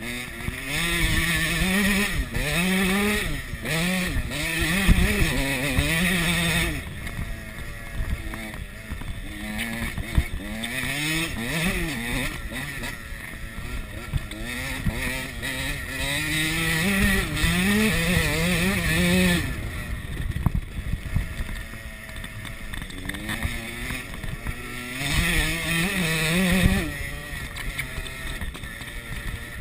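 KTM 85 SX two-stroke dirt bike engine being ridden hard, heard close from the rider's chest: the revs climb and drop again and again as it accelerates, shifts and backs off, with three long loud stretches of hard acceleration.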